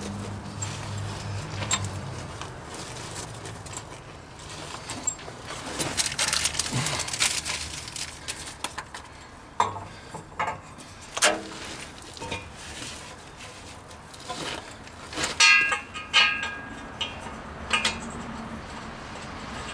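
Scattered metallic clinks and knocks as a new steel resonator exhaust pipe and its fittings are handled and worked into place under a car, with a few louder ringing clanks late on.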